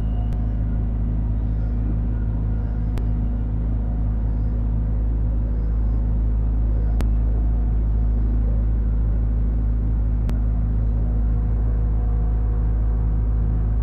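Diesel engine of a Sumitomo SH210 long-arm amphibious excavator running steadily under work, heard from inside the operator's cab as the arm lowers the bucket into the water. A few faint ticks sound over the engine.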